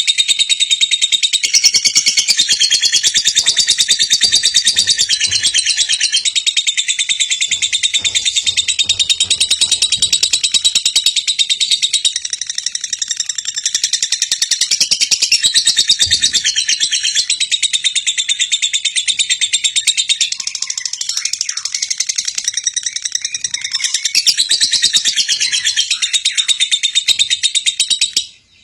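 Lovebird singing a long, unbroken, very fast chattering trill, the kind of song keepers call 'gacor' and play as a bait call to get young lovebirds singing. The trill cuts off abruptly just before the end.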